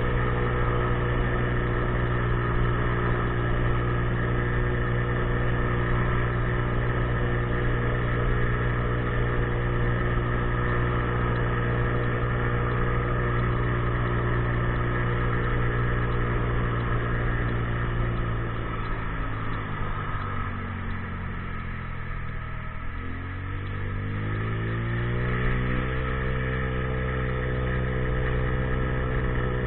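50cc scooter engine running at a steady speed. A little past halfway its revs fall away over a few seconds, then climb back up and hold steady again, as the scooter eases off and then accelerates.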